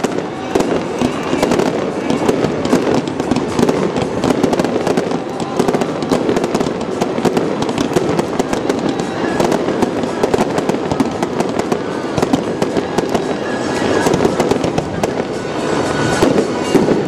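Fireworks crackling and popping continuously, a dense run of small rapid cracks with no single big bang standing out. Music plays underneath.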